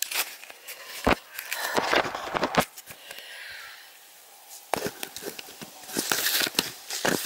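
Footsteps crunching and rustling through undergrowth: a run of uneven steps, a pause of about two seconds, then more steps.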